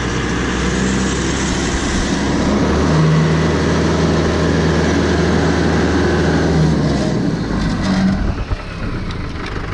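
Tractor engine running. About three seconds in its speed rises and holds there for about four seconds, then it eases back down.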